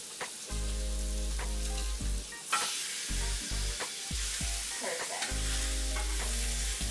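Chicken breasts sizzling on a hot, lightly oiled cast iron griddle skillet as they are laid on with tongs; the sizzle gets suddenly louder about two and a half seconds in.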